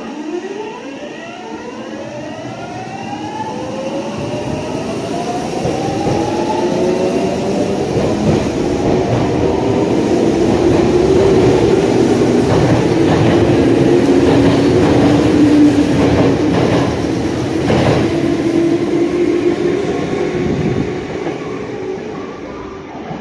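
Tsurumai Line subway train pulling out and accelerating: its motor whine climbs in several rising tones over the first few seconds, then the wheels clatter over rail joints, loudest about halfway through as the cars pass, and the sound eases off near the end.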